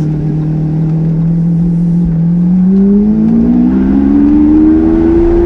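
Lamborghini Aventador's V12 engine running at a steady pitch, then accelerating from about two seconds in, its note rising smoothly as the revs climb.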